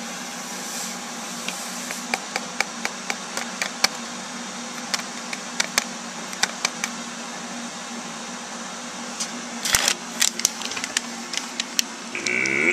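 Electric kettle heating toward the boil: a steady hiss and hum with irregular ticks and clicks throughout, a quick cluster of louder clicks about ten seconds in.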